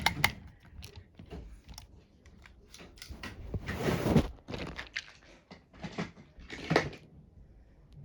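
Irregular clicks, taps and knocks, with a louder scraping rustle about four seconds in and another near the seven-second mark.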